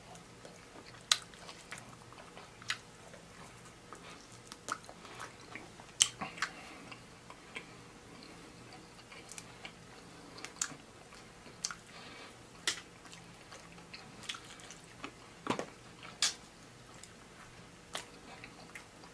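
Close-up chewing and biting of fried chicken wings, with sharp wet mouth smacks and clicks at irregular moments.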